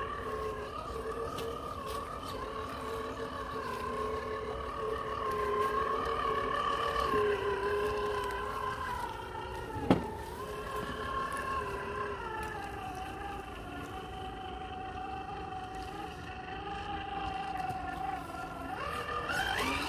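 Whine of an RC crawler's Hobbywing Fusion 1800kv brushless motor and drivetrain as it creeps along, its pitch drifting with the throttle and rising sharply near the end. A single sharp knock comes about halfway through.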